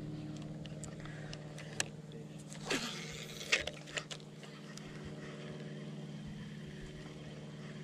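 A steady low motor hum, with a few light clicks and taps while a spinning reel is cranked.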